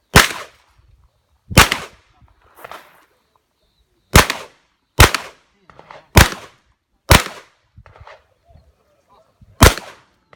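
Shotgun firing seven shots at uneven intervals, some close together and some a second or two apart, with fainter knocks and clatter between the shots.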